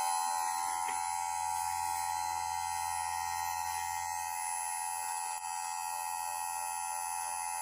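Electric chainsaw chain sharpener's motor running steadily with a high whine over a low mains hum.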